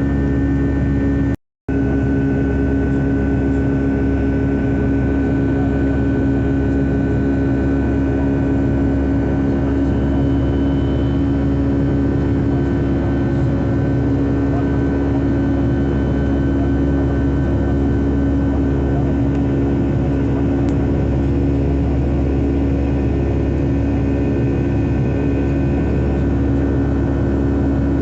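Boeing 757-300 jet engine noise heard inside the cabin: a steady drone with a constant hum, unbroken except for a brief cutout about a second and a half in.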